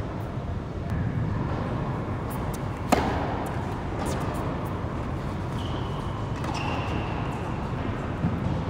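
Tennis ball struck by a racket on a serve: one sharp, loud crack about three seconds in, followed by fainter hits as the rally goes on. A steady low hum runs underneath.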